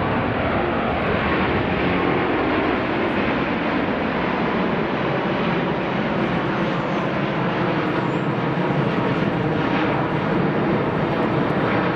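Airbus A380-841's four Rolls-Royce Trent 970 turbofans in a low, gear-down pass: steady jet engine noise.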